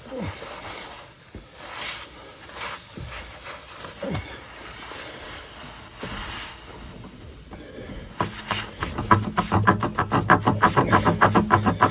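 Tire plug reamer being forced into the nail hole in an inflated tire, with faint scraping and air hissing. Past the middle it changes to fast rhythmic rasping strokes, about six a second, as the reamer is worked in and out of the hole.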